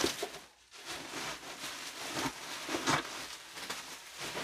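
Plastic bag of packing peanuts and a cardboard box being handled: irregular crinkling and rustling, with louder rustles about two and three seconds in.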